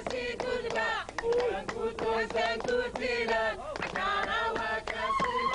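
A small group of men and women singing a Somali song together to steady, rhythmic hand clapping.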